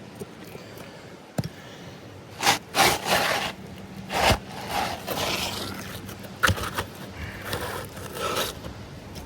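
A series of rough scraping and rubbing strokes on roof shingles, in bursts between about two and a half and eight and a half seconds in.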